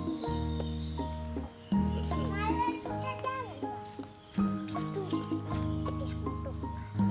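Steady high-pitched chirring of crickets or other insects, over soft background music of held, changing notes with a low bass.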